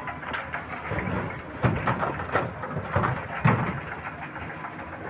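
Rocks tipped from an excavator bucket crashing into a dump truck's bed: a cluster of heavy knocks and clatters over about two seconds, with the excavator engine running underneath.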